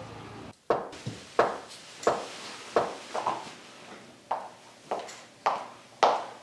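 Someone knocking on a wooden front door: about nine sharp knocks in loose runs, each roughly two-thirds of a second apart.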